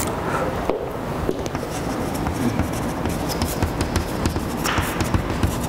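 Chalk writing on a blackboard: irregular sharp taps and scratches as the chalk strikes and drags across the board, over a steady low room hum.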